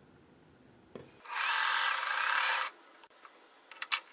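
Sewing machine running a short seam in one steady burst of about a second and a half, followed by a few small clicks near the end.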